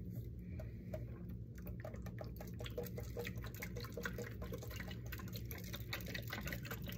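Water dripping and trickling from a tipped-up, liquid-filled plastic case into a stainless steel sink. The patter of drops gets quicker and busier about two seconds in.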